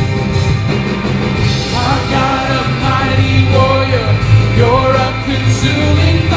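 Live worship band playing a rock song, with electric guitar. Sung vocals come in about two seconds in.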